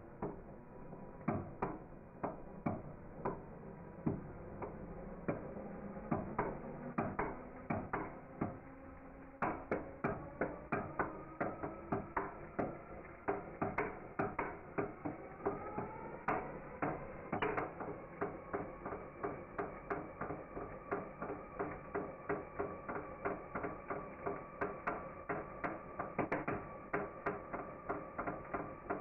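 Engine running with a sharp knock repeating a few times a second, its pitch rising partway through; the owner asks whether the knock is rod knock.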